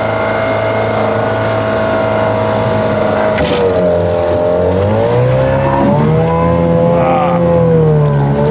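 Outboard motor on a small aluminum boat running steadily. From about three and a half seconds in, its pitch drops and rises several times as the throttle is eased and opened.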